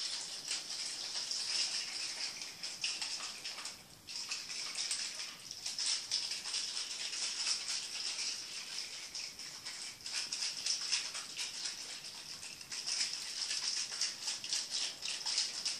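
Slime mixture shaken hard inside a capped test tube, sloshing and rattling like a shaker in fast strokes, with a short pause about four seconds in. The shaking mixes the glow-in-the-dark slime.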